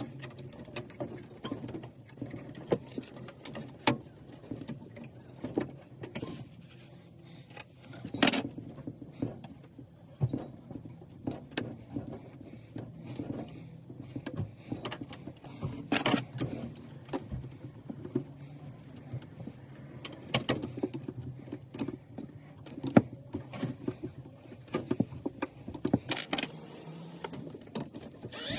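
Irregular clicks, knocks and light metallic clinks of hands working with tools and small parts, over a faint steady low hum.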